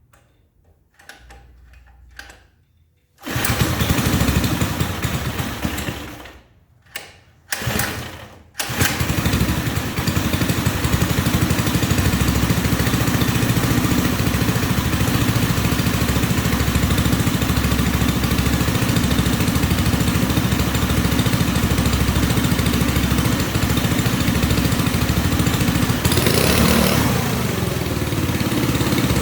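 Engine sound of a scale RC Cat D11 bulldozer starting. It runs in two short spells that die away, then catches about nine seconds in and runs on steadily with an even pulsing beat.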